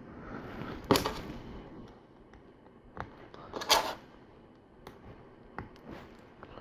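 LEGO plastic pieces clicking and clattering as they are handled and snapped together: a few sharp separate clicks, the loudest a short clatter a little past the middle.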